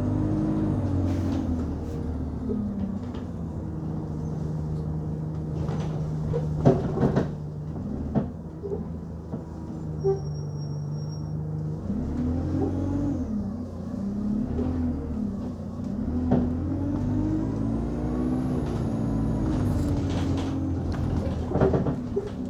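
Single-deck Alexander Dennis Enviro200 Dart bus heard from inside: its diesel engine and drivetrain drone, rising and falling in pitch as the bus pulls away and slows. Several sharp bangs come from underneath. The uploader suspects an axle fault.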